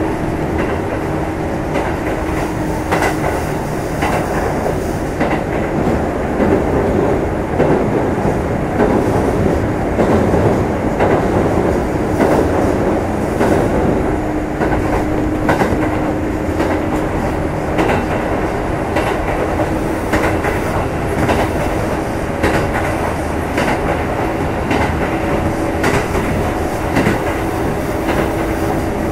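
Running sound from inside a Kintetsu 2610 series electric train motor car under way: a steady rumble of wheels on rail with repeated clicks over rail joints. A steady hum drops out after a few seconds and returns about halfway through.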